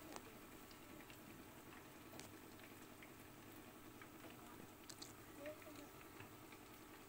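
Marinated fish pieces frying in hot oil in a pan: a faint, steady sizzle with scattered small pops and crackles.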